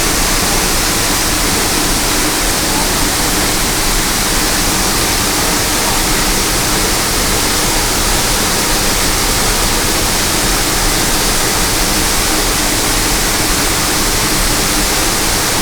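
Waterfall rushing, a loud and even hiss of falling water that holds steady without a break.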